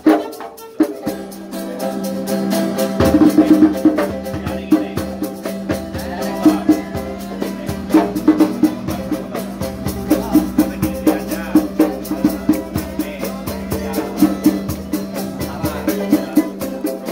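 Street musicians playing a song with a fast, steady percussion beat, shaker-like ticks over a held low note.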